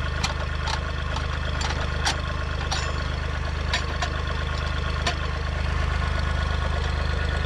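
Tractor engine idling steadily, with about seven scattered clinks and knocks as the hitch pins are pulled to unhook a finish mower.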